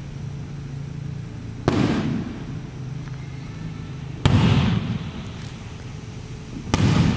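Aerial firework shells bursting overhead: three loud bangs about two and a half seconds apart, each with a short echoing tail.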